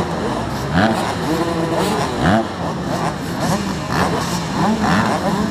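Many motocross bikes idling together, with throttles blipped over and over so that engine pitch rises and falls in quick overlapping revs.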